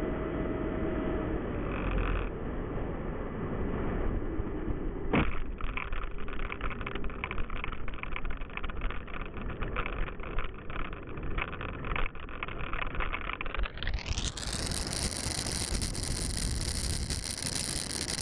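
Onboard audio of a radio-controlled electric ducted-fan model jet landing: the fan's whine easing down, a sharp knock about five seconds in as the wheels touch down, then the landing gear rattling and scraping as it rolls over rough asphalt. From about three-quarters of the way through the sound turns brighter and hissier.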